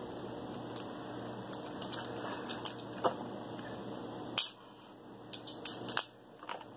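King crab leg shell cracking and snapping as it is broken apart by hand: a scatter of sharp cracks, the loudest about four and a half and six seconds in.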